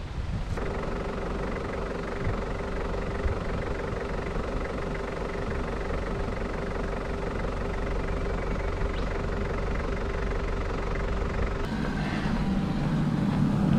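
Holden all-wheel-drive's engine idling steadily, the hum turning louder and deeper near the end.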